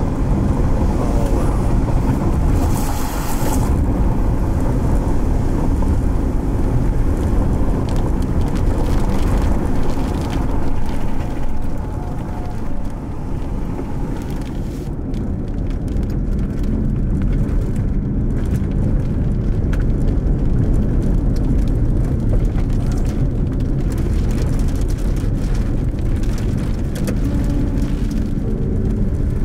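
Steady low rumble of a car driving, with a brief hiss about three seconds in.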